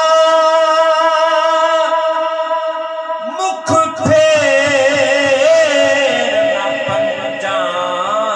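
A man singing a Punjabi devotional kalam through a PA loudspeaker. He holds one long note, then moves into a wavering, ornamented line after a brief knock about three and a half seconds in.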